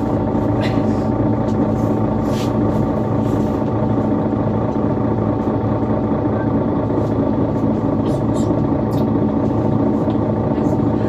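Diesel engine of a Mercedes-Benz Citaro C2 city bus running steadily at an even pitch, with scattered light ticks and rattles over it.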